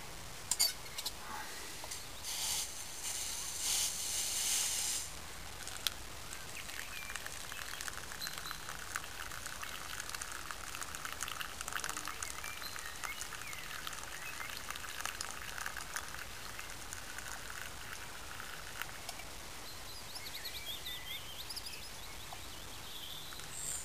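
Boiled nettle tea poured from a steel mug into a plastic cup, a steady trickle that runs for about twelve seconds after a few seconds of handling knocks and rustle. Faint bird chirps near the end.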